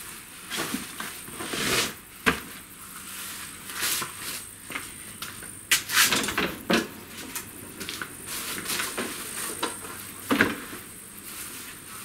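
Fishing gear and bags being picked up and handled: irregular rustling with knocks and clunks, sharpest about two seconds in, in a cluster around the middle, and once more near the end.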